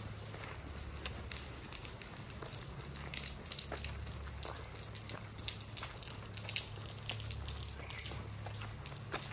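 Footsteps on wet stone paving, many irregular short clicks and splashy scuffs over a steady low rumble.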